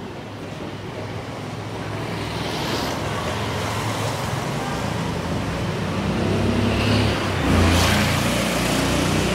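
Street traffic noise with a motorcycle engine coming closer, growing louder and passing by near the end.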